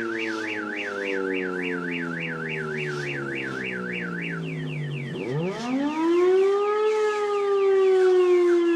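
Mechanical air-raid siren winding down with a falling pitch. About five seconds in it is started again and spins up sharply to a peak, then begins to wind slowly down. Through the first half a fast electronic warble, about three cycles a second, sounds alongside it.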